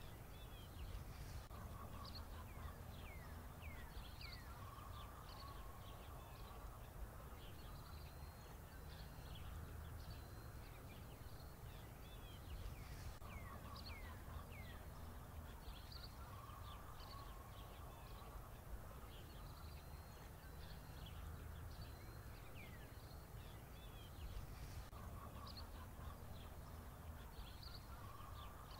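Faint bird chirps and short falling whistles over a low steady hum, the same pattern coming back about every twelve seconds, as in a looped ambience track.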